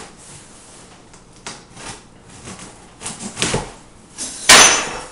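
Cardboard box being cut and opened by hand: scattered scrapes, rustles and light knocks, with one loud short scrape near the end.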